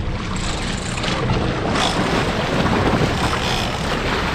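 Steady wind buffeting the microphone over a boat's Yamaha 250 outboard engine running.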